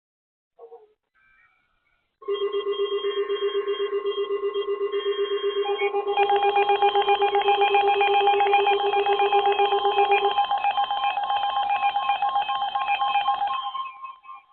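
Emergency alert attention signal: several rapidly pulsing electronic tones at different pitches, layered and overlapping. It starts about two seconds in, a further tone joins about six seconds in, the lowest tone drops out about ten seconds in, and the rest fade near the end.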